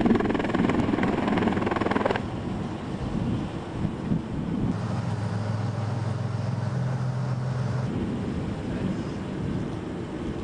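Vehicle or aircraft engine noise, loud at first and cut off abruptly about two seconds in. A quieter rumble follows, with a steady low engine drone in the middle that steps up in pitch briefly.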